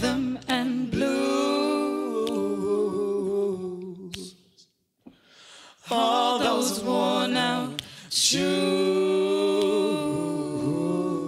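Several voices singing in close harmony with no instruments: an a cappella passage of the song. It comes in three held phrases, with a near-silent breath of about a second just before the middle.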